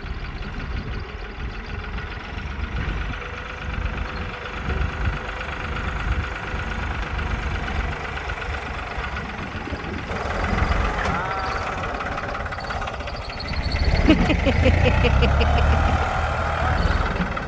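A vehicle engine running steadily with a low rumble, louder from about ten seconds in, with voice-like sounds over it in the second half.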